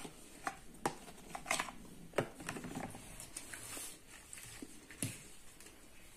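A metal spoon scraping and tapping inside a plastic food container, then clinking and scraping on a plate as the food is cut and mixed: a scattered string of light clicks and scrapes.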